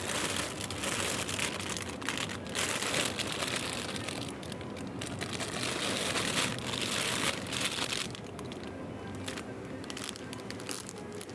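Plastic bag crinkling and rustling as it is handled, in bouts over the first eight seconds or so, then quieter with a few light crackles.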